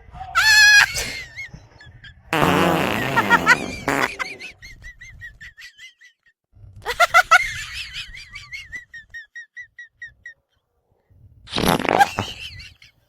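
Fake fart sound effects: four separate blasts, several with a wobbling pitch. Two of them trail off into a string of short, high squeaks.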